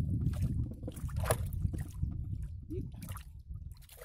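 Water sloshing and dripping around a wooden dugout canoe, with a few small sharp ticks and splashes, over a steady low rumble.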